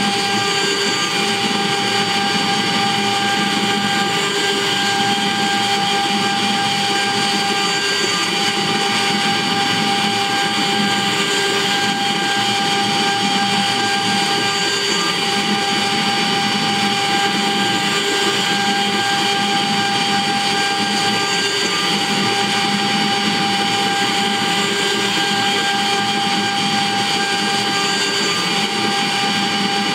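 CNC wood router spindle running at high speed with a constant whine while its fine engraving bit carves a wooden relief.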